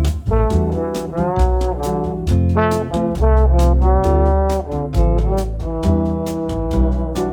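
Background jazz music: a brass melody of held notes over a bass line and a steady drum beat.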